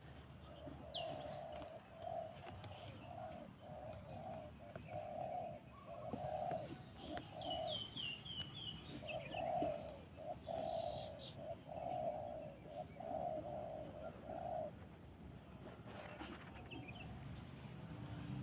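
A bird gives a long series of short, low cooing notes, about two a second, stopping about fifteen seconds in. Small birds chirp briefly over it, and a steady high hiss runs underneath.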